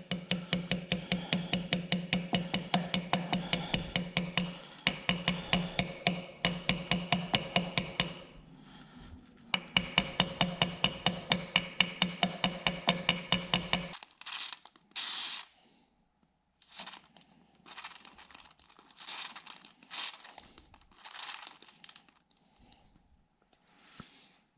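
Small brass-faced hammer tapping rapidly on metal, about five light ringing strikes a second, driving a part further into the drill grinder's casting; the tapping pauses briefly about 8 s in, resumes, and stops about 14 s in. After that, quieter rustling and handling noises.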